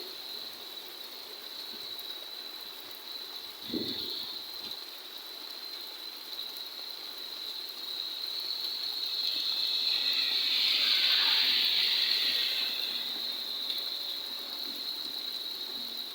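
Rain and floodwater rushing over a flooded road, a steady hiss of water. There is one thump about four seconds in, and the water noise swells and fades again around the middle.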